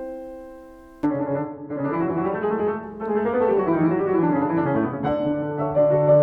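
Piano music: a held chord fades away, then about a second in a lively run of piano notes begins and carries on.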